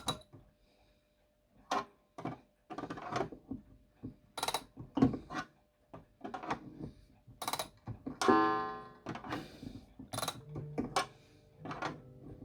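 Mantle clock being wound with its key, the winding ratchet clicking in short groups. About eight seconds in, the clock's gong is struck once, a ringing note that slowly fades.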